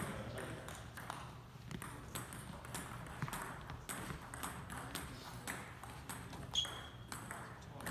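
Table tennis balls clicking against tables and paddles in a series of short, sharp, irregular ticks, with one louder, bright ping about six and a half seconds in.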